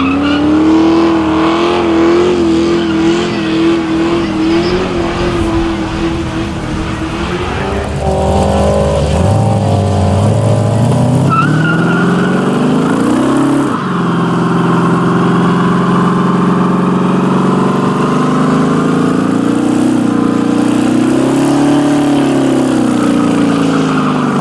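American V8 muscle car doing a burnout: the engine is held at high revs with the rear tyres spinning. The revs waver, climb about halfway through and drop suddenly, then hold high again and ease off near the end.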